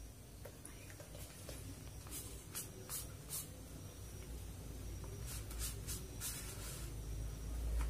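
Paper discs on a place-value chart being turned by hand: several short, dry scrapes of card rubbing on card, in two groups. A low rumble grows louder toward the end.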